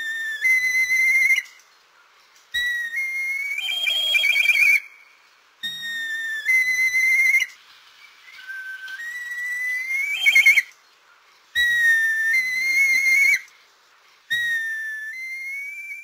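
Red kite calling: a series of high, thin whistled calls with a wavering trill, each one to two seconds long, repeated about every three seconds.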